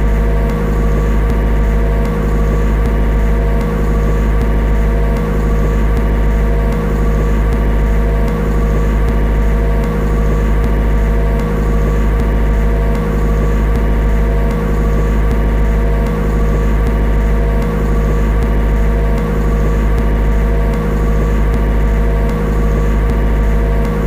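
Car engine idling steadily after a cold start, a low continuous hum with a faint regular pulse a little faster than once a second.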